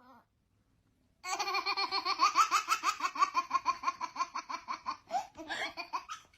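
High-pitched laughter: a long run of quick, evenly repeated laughs, about five or six a second, starting about a second in and tailing off near the end.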